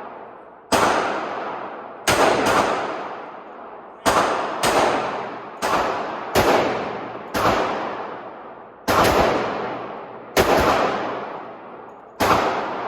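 A string of about ten .45 ACP 1911 pistol shots, roughly one a second with a couple fired in quick pairs. Each shot rings out and dies away over about a second.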